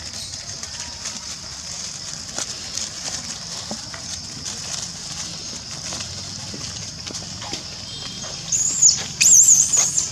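Scrambling and rustling in dry leaves over a steady high-pitched hiss. About eight and a half seconds in, a young long-tailed macaque screams in loud, high, wavering squeals, twice in quick succession.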